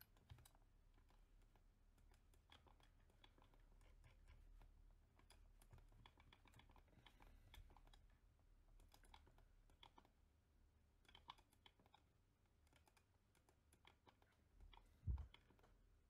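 Faint, scattered clicks of a computer keyboard and mouse, with one soft low thump near the end.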